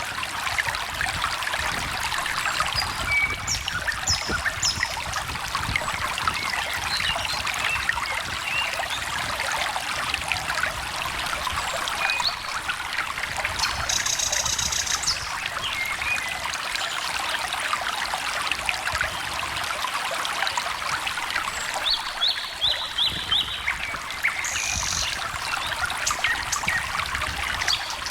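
A stream trickling and babbling steadily, with small birds calling now and then over it: short high chirps, a buzzy note about fourteen seconds in, and a quick run of four notes a little before the end.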